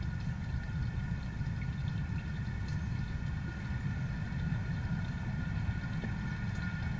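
Steady low rumble with a faint steady hum above it, unchanging throughout, broken only by a couple of faint ticks.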